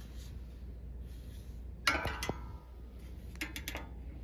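Steel shelf beam clinking against a perforated steel corner upright as it is set into the keyhole slot: one ringing metallic clink about two seconds in, then a few light clicks.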